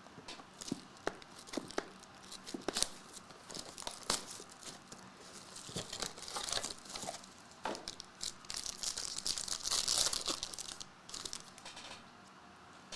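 Trading-card packaging being torn open and crinkled by hand, with scattered clicks and taps of handling; the tearing and crinkling is densest from about six to eleven seconds in.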